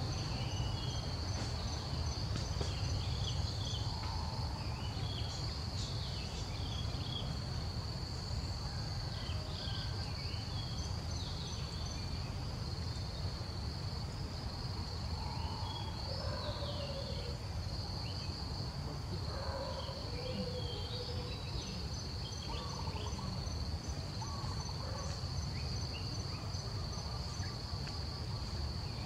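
Insects trilling steadily at one high pitch, with a fainter pulsing trill above it at times. Scattered short chirps and a steady low rumble run underneath.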